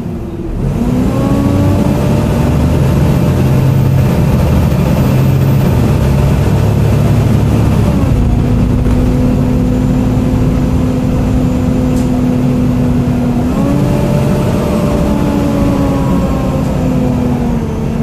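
Volvo B7TL double-decker bus under way, heard from the top deck: the Volvo D7C six-cylinder diesel rumbles under a loud, hoover-like drivetrain whine that rises as it accelerates. The whine's pitch steps down about eight seconds in, steps up again about fourteen seconds in, then slowly falls.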